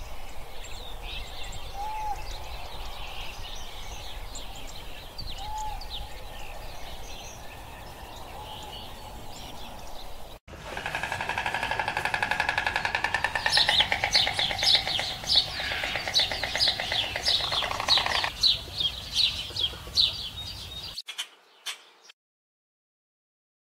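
Birds chirping, with a few short repeated calls. After a sudden cut, a louder chorus of quick chirps over a fast pulsing trill, which breaks off abruptly near the end.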